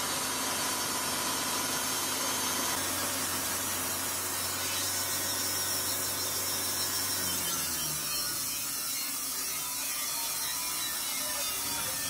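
A portable sawmill's engine runs steadily as the saw head travels along a large log. About eight seconds in, its steady hum drops in pitch.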